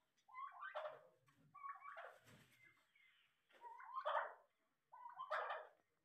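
Domestic turkey tom gobbling four times, about once every second and a half; each gobble is a quick rattling call.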